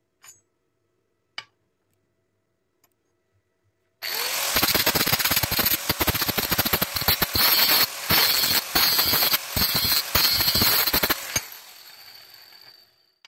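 Angle grinder with an abrasive disc started about four seconds in, spinning up and grinding the hex head of a steel bolt. The loudness dips and returns again and again as the disc bites and lifts. It is switched off after about seven seconds and winds down with a fading whine.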